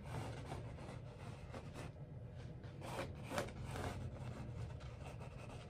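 Pencil sketching on a stretched canvas: a run of short rubbing, scraping strokes, a couple of them louder a little past the middle.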